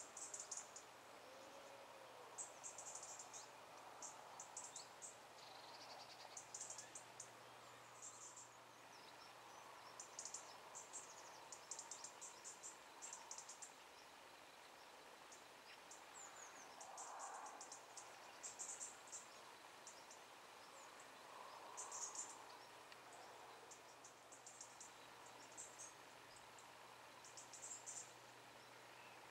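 Faint insects chirping in a meadow: short, high-pitched bursts of rapid pulses every second or two, over a quiet background.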